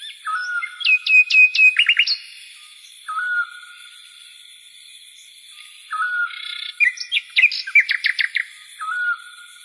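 A small songbird singing: short whistled notes, with two bursts of quick falling and rising chirps, one near the start and another about seven seconds in.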